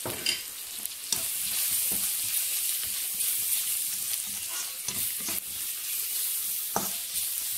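Onions, ginger-garlic paste and freshly added powdered spices frying in hot oil in a pan with a steady sizzle. A slotted spatula stirs and scrapes the pan, giving a handful of sharp knocks.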